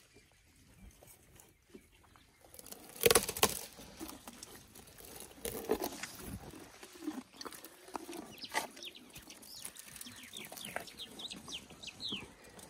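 An African elephant browsing thorn branches right at the microphone: rustling and crackling of twigs as it handles and chews them. A loud, sudden brushing burst comes about three seconds in, and a run of short, high, falling chirps follows near the end.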